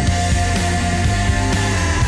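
Loud rock music with a held melody note over a steady beat: the Seattle Kraken's goal song, played after the goal horn to celebrate a goal.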